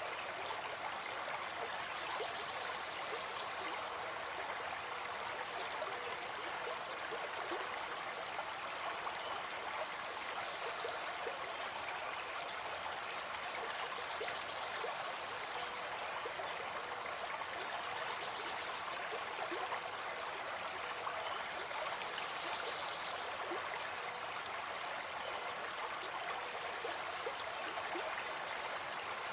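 Stream water running and trickling steadily, an even rushing with fine gurgles.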